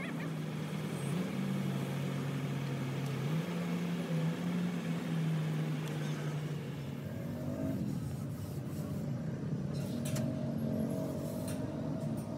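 An engine running steadily, its low hum shifting in pitch a few times, with a few sharp clicks near the end.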